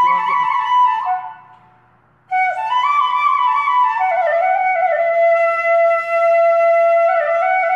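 Solo flute music: slow held notes with sliding ornaments. One phrase fades out about a second in, and after a short pause a new phrase begins and settles on a long held low note.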